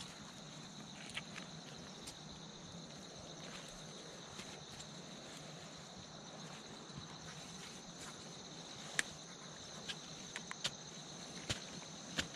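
Insects chirring steadily with a high, even tone, while a hand-held digging tool knocks into soil at a ground bee nest. The knocks are sharp and scattered, and come more often in the last few seconds.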